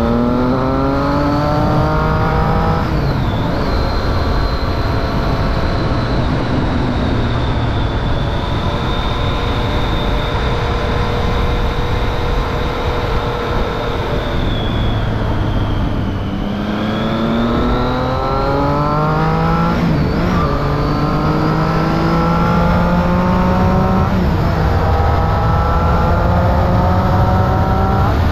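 Triumph Street Triple 675's three-cylinder engine through a Remus Hypercone exhaust with dB killer, accelerating under way. It pulls up through a gear and shifts about three seconds in, then holds a steady cruise. Around the middle it eases off slightly, then accelerates again with further upshifts. A steady high whine runs alongside.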